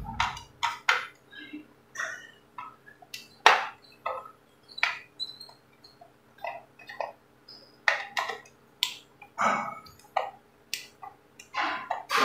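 A screwdriver working loose the cover screws of an electric iron: irregular clicks and scrapes of the metal tip in the screw heads, the loudest click about three and a half seconds in.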